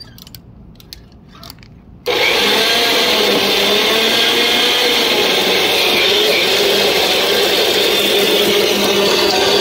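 Corded electric garden tiller's motor cutting in suddenly about two seconds in and then running loudly and steadily as its tines churn the soil, its whine wavering a little in pitch. Before it, only a few faint clicks.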